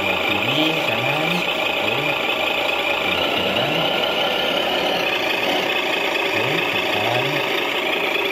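Engine-sound unit of a radio-controlled Mercedes-Benz L911 model logging truck playing a truck engine idling steadily, just started with the transmitter's left stick while the model stands still.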